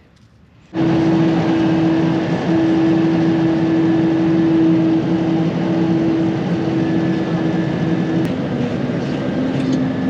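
Combine harvester running steadily, starting suddenly about a second in, with a steady hum over the machinery noise that drops slightly in pitch near the end.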